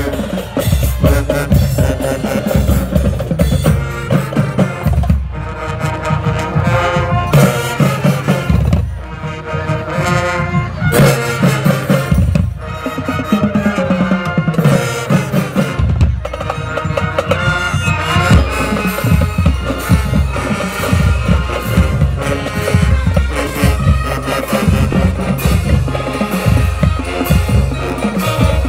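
High school marching band playing a stand tune: the drumline's snare, tenor and bass drums keep a busy steady beat under sousaphones, horns and marimbas. Twice the heavy drum hits drop back and the pitched parts carry the tune for a few seconds.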